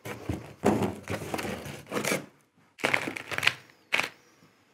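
Thin facing-brick slips clattering out of a cardboard box onto a wooden workbench as the box is emptied, in a few separate bursts of rattling and knocking.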